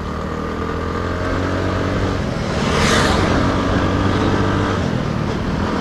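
TVS Ntorq scooter's engine running under way, its pitch climbing over the first couple of seconds as it picks up speed, then holding steady. Road and wind noise run underneath, with a brief whoosh about three seconds in.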